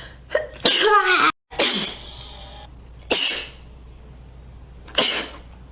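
A young woman sneezing three times, about one and a half to two seconds apart, after a short gasping wind-up.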